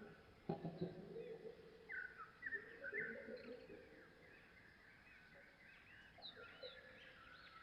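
Faint bird calls: short high chirps repeat throughout, with lower pitched calls about a second in and again about three seconds in. A short knock sounds about half a second in.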